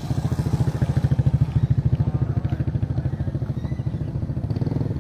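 A small engine running close by with a fast, even beat, growing louder about a second in and easing off toward the end.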